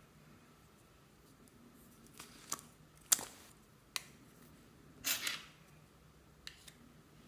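Small plastic cream jars handled with a few sharp clicks and taps, the loudest about three seconds in. About five seconds in comes a short scraping sound as a spoon scoops into the white cream in one jar.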